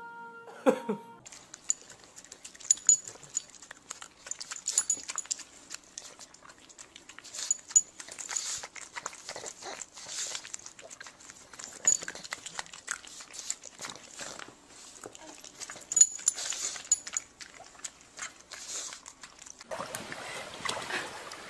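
A pug making many short, irregular noises close to the microphone. Near the end, a voice comes in.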